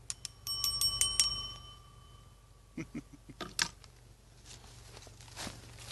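A small metal bell rung rapidly, about eight quick strikes in just over a second, its tone ringing on and fading over the next two seconds; then a few soft clicks and knocks.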